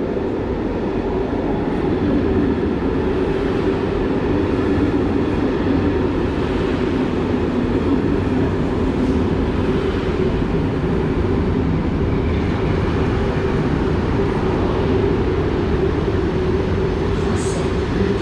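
Belgian Railways Class 96 (AM96) electric multiple unit running along the line, heard from inside the carriage: steady rolling noise with a constant low hum. A few short, high clicks come about a second before the end.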